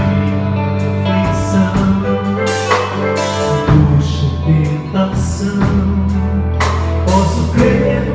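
Band music from a Christian worship song: steady bass notes under repeated drum and cymbal hits, with some singing mixed in.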